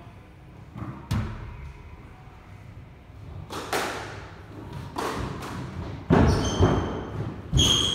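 Squash rally: the ball cracking off rackets and the court walls in a handful of sharp hits a second or so apart, the loudest in the last two seconds.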